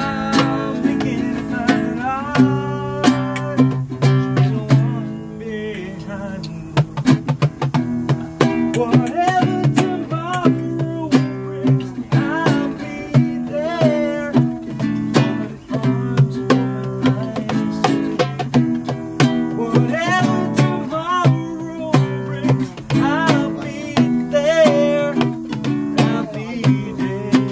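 Acoustic guitar played live, with quick, sharp plucked and strummed notes.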